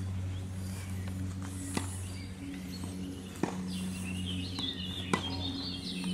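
Tennis ball struck by rackets in a rally on a clay court: three sharp pops about one and a half seconds apart, over a steady low hum, with birds chirping around the middle.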